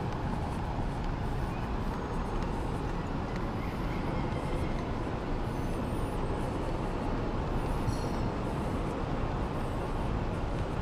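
Steady outdoor city-street ambience: a low, even rumble of traffic, with a few faint high chirps now and then.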